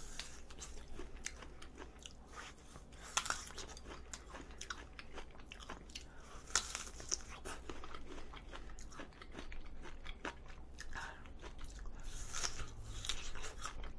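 Crisp fresh apple slices being bitten and chewed close to the microphone: a string of wet crunches, with a few sharper bites standing out.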